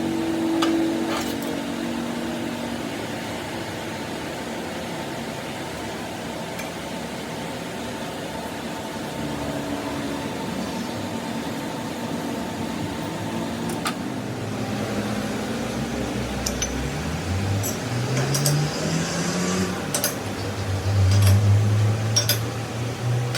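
Steady workshop machine hum with a few sharp metallic clicks, and a low motor tone that rises in steps near the end.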